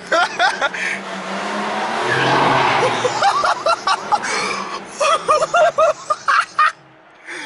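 BMW M4's twin-turbo straight-six, heard from inside the cabin, droning steadily and then accelerating hard in a concrete parking garage. Engine and exhaust noise swells to a loud peak about two to three seconds in, then eases off.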